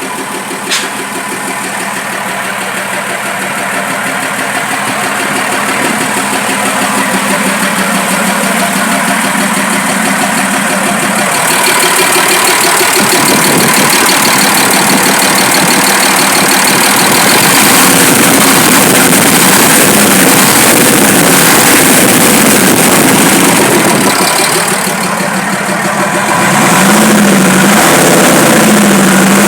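Fiat 190 truck's diesel engine running and being revved, getting louder over the first half. Near the end its speed rises and falls unevenly. The engine has been brought back to running after three years standing.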